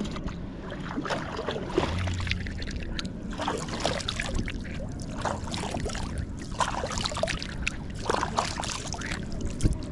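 Water splashing and lapping against a kayak, in quick irregular splashes.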